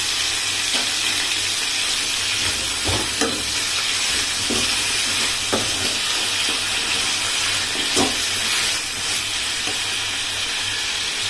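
Chopped chayote, shallots, tomato and chillies sizzling in oil in a kadai, dry-frying with no water added. A steady hiss runs throughout, broken by a few scrapes and taps of a steel slotted spatula on the pan as the vegetables are stirred.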